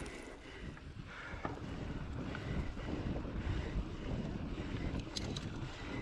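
Wind buffeting the microphone over the rumble of mountain bike tyres rolling on a dirt singletrack, with a few brief rattling clicks about five seconds in.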